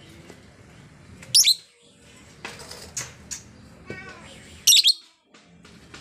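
Female blue masked lovebird calling with shrill, high-pitched chirps. A loud burst comes about a second in and another near the end, with softer chirps and a short twitter in between.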